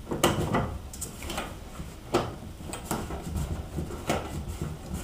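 Irregular clicks and knocks as a corrugated flexible copper water connector and its fitting nut are handled and fitted onto a compression fitting.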